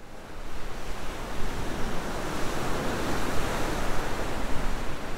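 Ocean surf: a steady rushing wash of breaking waves, swelling in over the first second and then holding with small surges.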